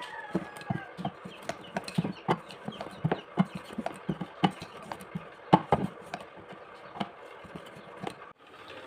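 Wooden rolling pin knocking and clattering on a steel plate while roti dough is rolled out. The knocks are sharp and uneven, about two or three a second.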